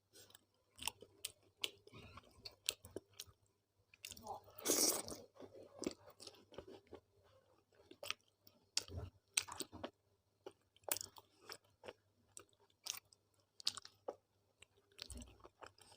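Close-miked chewing and wet mouth sounds of a person eating roti with dal and sabzi: many short smacking clicks in an uneven rhythm, with a longer, louder noisy sound about four and a half seconds in.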